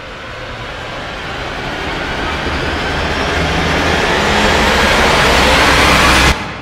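Cinematic riser sound effect for a title intro: a rushing noise swell that builds steadily louder and rises in pitch, then cuts off sharply about six seconds in.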